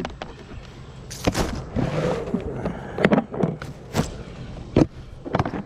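Irregular clicks and knocks of a red plastic Milwaukee wet/dry vacuum's case and lid being handled and opened, with rustling between them, the vacuum's motor no longer running.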